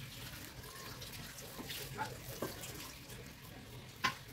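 Fish-and-greens bharta paste being scooped by hand off a stone grinding slab, with soft scraping and small clicks over a steady hiss. A sharp knock comes near the end.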